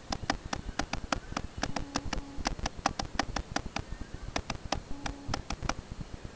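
Quick series of sharp clicks, about five a second, from hands working a small object, with a short pause about four seconds in and stopping shortly before the end.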